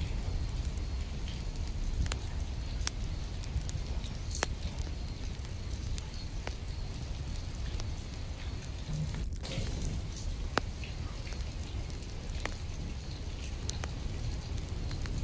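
Steady rain: a continuous hiss over a low rumble, with many scattered, irregular drop ticks.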